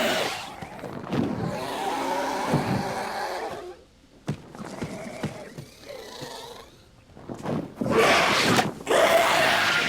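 Designed creature sound effect for a Dimorphodon, a pterosaur: a series of harsh, pitched calls. A loud call opens it, then a longer call of about three seconds, quieter scattered calls in the middle, and loud harsh calls again near the end.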